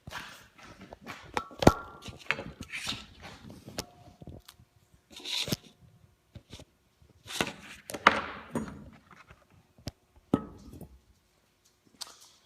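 Handling noise: a string of knocks, thunks and rustles as the camera is set down and moved about, the sharpest knocks about a second and a half in and again about eight seconds in.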